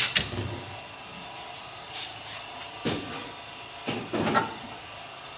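A few short knocks and taps from hands working bread dough on a work surface: a sharp double click at the start, then separate knocks about three and four seconds in, over a steady faint hum.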